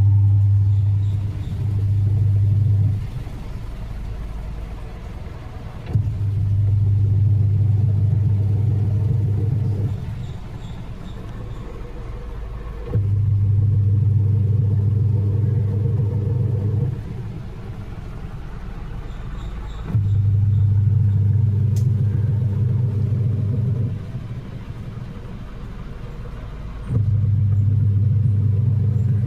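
Haier washing machine motor humming in runs of about four seconds, separated by pauses of about three seconds, over and over: the on-off rhythm of a wash cycle turning the drum.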